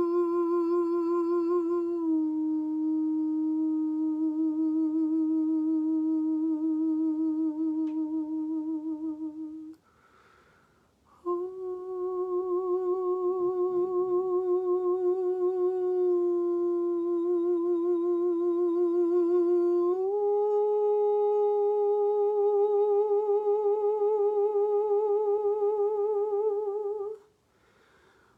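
A woman's voice singing long, wordless held notes with a gentle vibrato. She steps between a few nearby pitches and twice breaks off briefly for breath.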